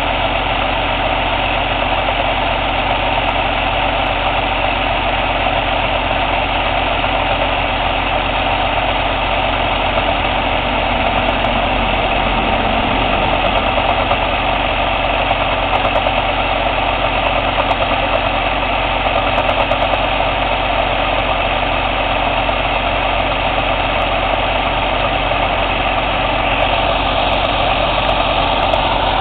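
Cummins ISX CM2250 inline-six diesel idling steadily during a DPF regeneration.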